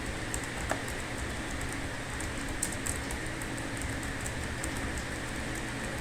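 Computer keyboard keys clicking irregularly, several light strokes a second, over a steady background hum.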